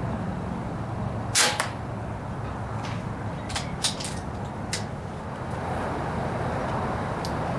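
A single shot from a .25 calibre Daystate Air Ranger PCP air rifle, a sharp crack about a second and a half in, followed a moment later by a second, softer crack. A few fainter clicks follow over the next three seconds.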